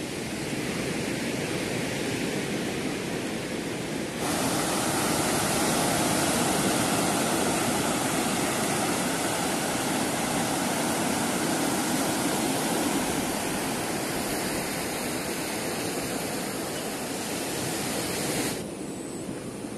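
Steady rushing noise of sea surf and wind. It turns louder and brighter suddenly about four seconds in and drops back suddenly near the end.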